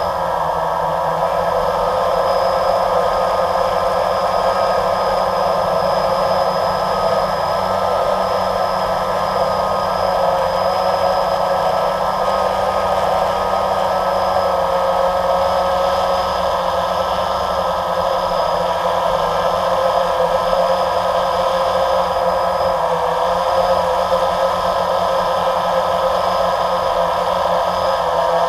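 Electric motors and propellers of the camera-carrying drone whirring steadily, heard from on board, with a high whine over the drone.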